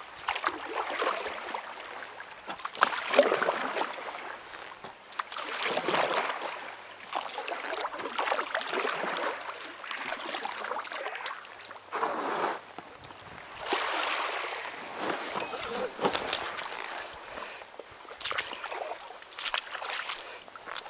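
Paddling an inflatable kayak: the paddle blades splash into the water and drip, one stroke every couple of seconds.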